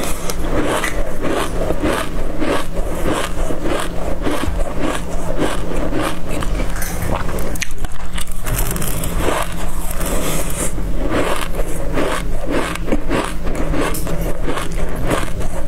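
Close-up chewing of a mouthful of dry black seeds: a dense, continuous run of crisp crunches and crackles. A spoon scrapes through the seeds in the tray now and then.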